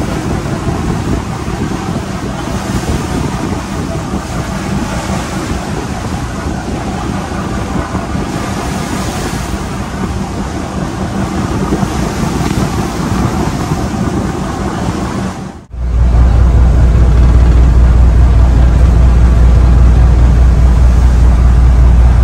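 Ship's diesel engine running steadily aboard a ferry, mixed with wind and sea noise. About 16 seconds in there is an abrupt cut to a much louder, deep steady engine drone.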